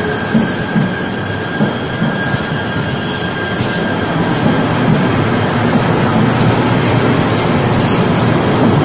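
KTM Komuter Class 92 electric multiple unit running past the platform: rumbling wheel and motor noise with faint wheel squeal and occasional knocks over the rails, growing louder in the second half.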